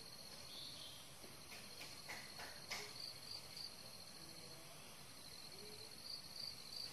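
Faint forest ambience: an insect trilling steadily at a high pitch, breaking into short rapid pulses at times, with a few faint clicks in the first three seconds.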